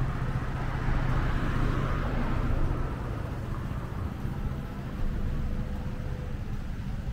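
Street traffic: a low, steady engine rumble, with a vehicle passing between about one and three seconds in.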